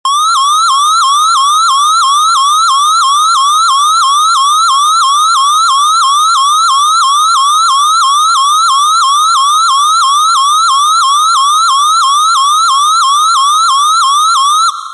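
Synthesized emergency-alert siren tone: a fast, repeating upward sweep, about two to three rises a second, each snapping back down before the next. It cuts off abruptly near the end, leaving a short fading echo.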